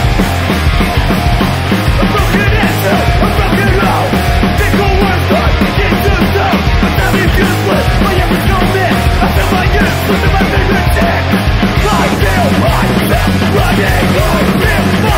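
A melodic hardcore punk song playing loud and steady, with a full rock band of distorted electric guitars, bass and drums.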